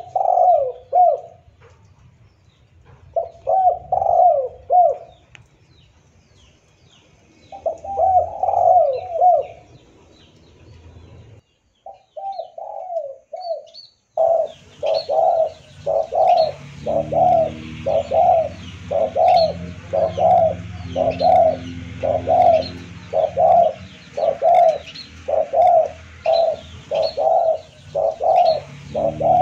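Spotted doves cooing. Three separate cooing phrases come in the first ten seconds, then, after a brief break, an unbroken run of coos about one and a half a second, with faint high chirps of small birds above.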